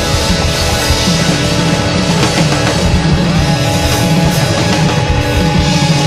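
Live rock band playing loud: electric guitar, drums and bass driving a repeating riff.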